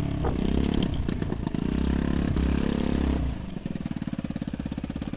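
A 2003 Honda Metropolitan scooter's 49 cc four-stroke single-cylinder engine running, then dropping back about three seconds in to a steady, evenly pulsing idle.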